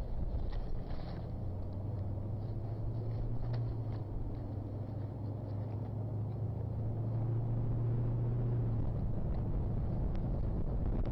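A low steady engine hum, like a distant vehicle, over a low rumble; the hum stops about nine seconds in.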